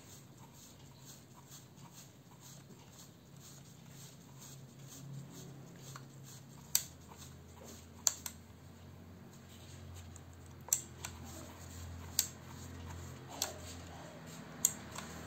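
Knurled knob on a Ricohflex twin-lens reflex camera being turned by hand. Faint ticking comes first, then from about halfway in a sharp click sounds roughly every second and a half, six times.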